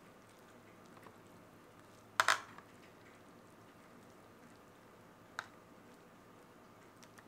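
Metal kitchen tongs clinking while stirring noodles in soup in an aluminium foil tray: a sharp double clink about two seconds in, a single clink a few seconds later, and a few faint ticks.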